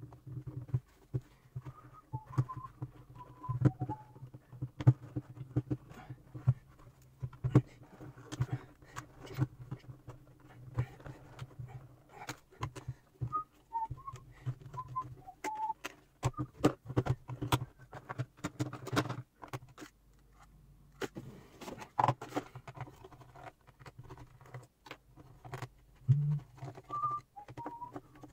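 Clicks and knocks of a Hantek 2D72 handheld oscilloscope's plastic case being handled, its buttons pressed and the case opened, over a steady low hum. Short high chirps come now and then, a few at a time.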